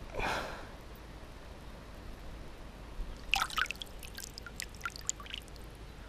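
A hand moving in shallow river water while pushing a stone down onto the fishing line on the riverbed: small splashes and drips, bunched about three seconds in and then scattered as the hand comes out of the water. A short hiss at the very start.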